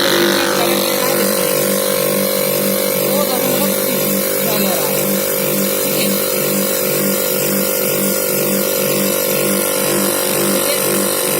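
Hermetic refrigeration compressor running after being started directly on its windings without the relay: a steady electric-motor hum with a slight regular throb.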